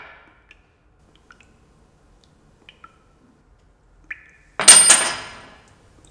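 An old penny clinking against a tabletop: a few light metallic ticks, then about four and a half seconds in two sharp strikes in quick succession, ringing high and dying away over about a second. The ringing of an earlier strike is fading at the start.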